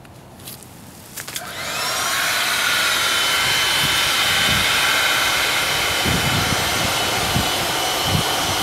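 An electric air pump switches on about a second and a half in, its whine rising as the motor spins up, then runs steadily with a loud blowing hiss.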